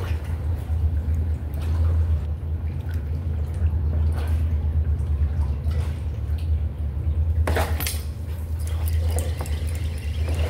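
Water dripping and lapping against concrete pilings, with scattered small drips. A steady low hum runs underneath and is the loudest sound. About seven and a half seconds in there is a brief splash-like rush.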